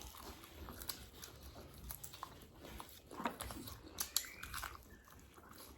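Close-up eating sounds of someone biting and chewing crispy fried chicken: soft crunches, wet mouth clicks and smacks, a little louder about three and four seconds in.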